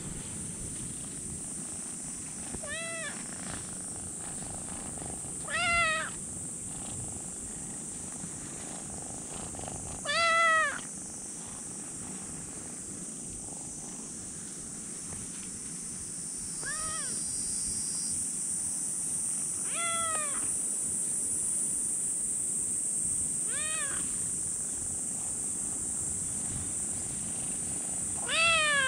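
A kitten meowing about seven times, short calls spaced a few seconds apart, each rising and falling in pitch.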